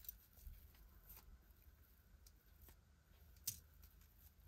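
Near silence broken by a few faint clicks, the loudest about three and a half seconds in: small metal jewelry pieces being handled.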